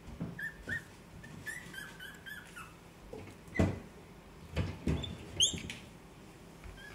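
Seventeen-day-old Shiba Inu puppies squeaking: a string of short high squeaks in the first few seconds and one rising squeak about five seconds in. Soft thumps from hands handling the puppy come between them.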